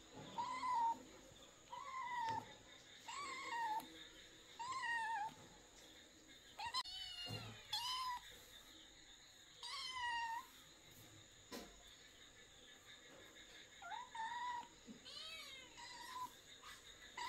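A kitten meowing over and over: about ten short, high mews, each rising then falling in pitch, a second or so apart, with a pause of a few seconds past the middle.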